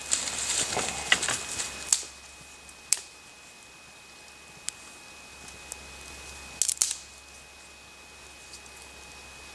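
Spark striker being scraped to light a fire: a run of quick, bright scrapes in the first two seconds, then a few sharp clicks later on.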